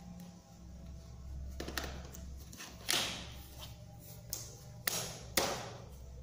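Small hard objects handled by hand: a handful of sharp clicks and knocks, the loudest about three seconds in and again near the end, each trailing off in a brief rustle, over a faint low hum.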